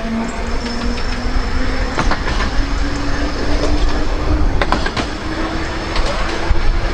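Narrow-gauge electric tram running, its motor's whine rising steadily in pitch as the tram gathers speed. Under it are a low rumble and a few sharp clicks from the wheels on the track.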